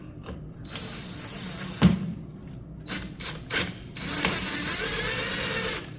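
A cordless power driver runs in bursts, driving a screw into the wooden door frame, with a sharp knock about two seconds in. The screw is tending to follow an old hole.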